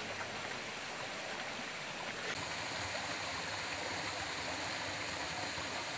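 Jungle stream flowing over rocks, a steady rush of water that grows slightly louder about two seconds in.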